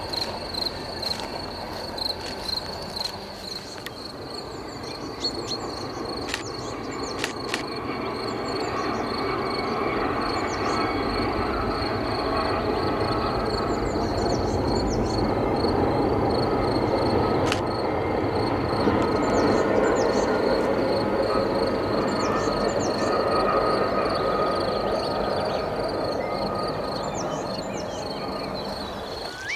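Passenger train running across a long viaduct: the rumble of its wheels swells over several seconds, stays loudest for a while, then fades away. Crickets chirp steadily throughout, and birds call with short falling chirps.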